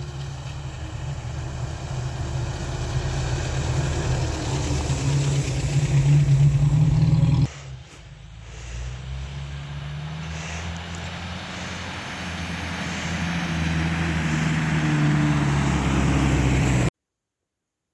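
An engine running and growing louder, cut off sharply about halfway through, then building up again before the sound stops abruptly near the end.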